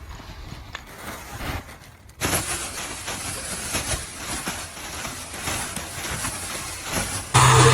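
A steady rushing hiss that starts suddenly about two seconds in and holds evenly. Right at the end, a louder sound with a low hum cuts in.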